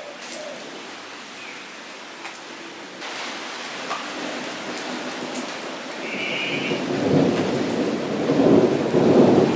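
Rain falling steadily onto a wet paved surface and into a shallow puddle, with scattered drip ticks. In the second half a low rumble builds up and grows loud, drowning the rain.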